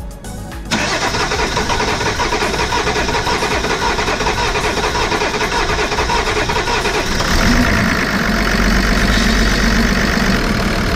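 Car engine running, cutting in suddenly under a second in and growing a little louder and deeper from about seven seconds in.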